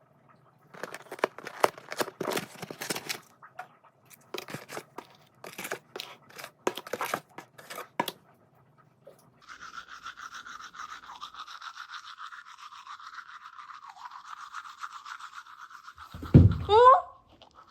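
Clicking and clattering in two spells, then a small electric motor buzzing steadily from about nine and a half seconds in. Near the end there is a loud thump together with a short, wavering high-pitched sound.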